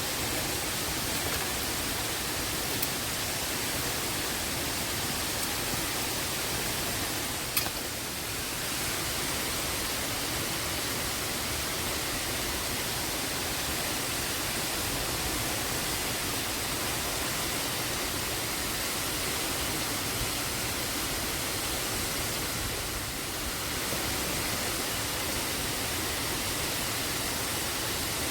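Steady rushing of a waterfall, an even hiss-like roar of falling water, with one sharp click about seven and a half seconds in.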